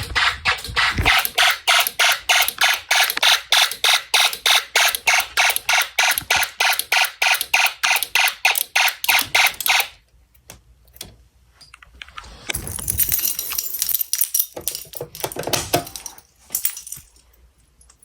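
Snap Circuits fire alarm horn sounding in rapid buzzy pulses, about three a second, during a system test. It cuts off about ten seconds in, followed by clicks and rustling as the circuit is handled.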